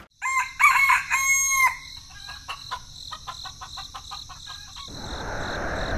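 A rooster crows once, briefly, followed by a run of short chicken clucks. Near the end the clucking stops and a steady hiss fades in.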